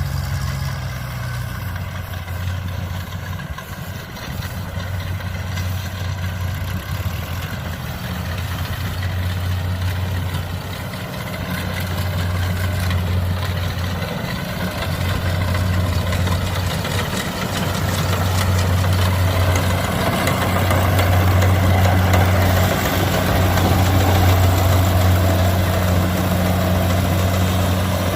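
Kubota DC70 combine harvester running, its diesel engine a steady low hum, with the whir of the machinery growing louder in the second half.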